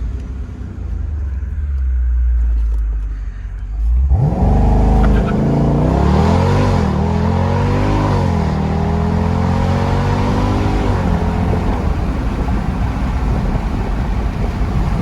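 2018 Jeep Grand Cherokee SRT's 6.4-litre HEMI V8, with an AFE cold air intake and Borla cat-back exhaust, rumbling low, then launching at full throttle about four seconds in for a 0-60 run. The revs climb and drop back at two upshifts. After about eleven seconds it eases off to a steady cruise.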